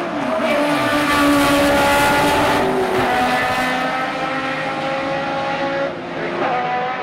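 Mirage M12's Cosworth DFL V8 racing engine at high revs as the car passes and pulls away, the pitch climbing in the first second, with a brief break like an upshift about three seconds in.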